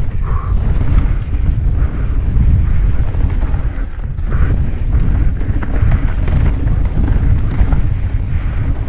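Wind buffeting the action camera's microphone during a fast mountain-bike descent: a loud, steady low rumble. Over it come tyres running on a dirt trail and a few short knocks and rattles from the bike.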